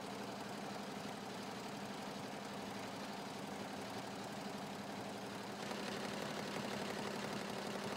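20-head industrial embroidery machine running, its needles going in a rapid, even chatter over a steady hum. It gets a little louder about five and a half seconds in.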